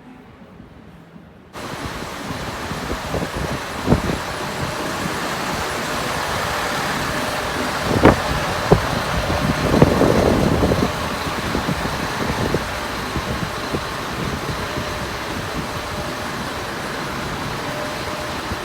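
Steady street noise of vehicle engines running, starting abruptly about a second and a half in, with a few sharp knocks.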